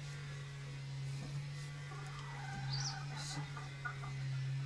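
Soft clucking calls from domestic fowl, over a steady low hum, with a short high squeak about three seconds in.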